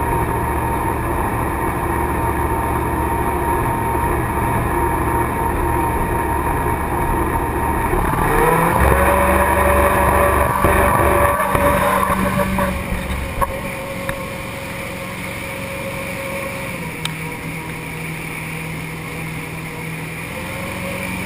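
V8 engine of a tunnel-hull jet boat running under way, over a rush of wind and water. The engine note steps up and is loudest from about eight to twelve seconds in, then eases off to a quieter, steady run.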